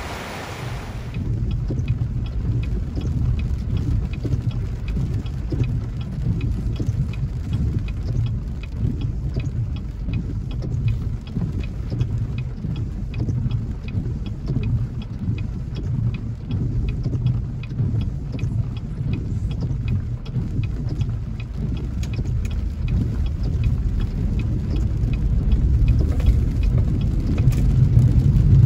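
Rushing floodwater for about the first second. Then a car's cabin noise while driving on a wet road in rain: a steady low rumble of engine and tyres, with faint ticking of raindrops on the glass.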